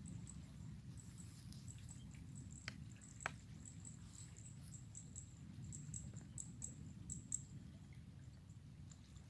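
Quiet outdoor ambience: faint high-pitched chirps repeating in irregular runs over a steady low rumble, with two sharp clicks about three seconds in.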